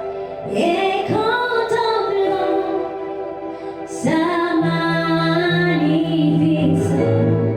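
Woman singing a slow worship song over sustained instrumental chords: two sung phrases, the first beginning about half a second in and the second about four seconds in, with low bass notes joining under the second.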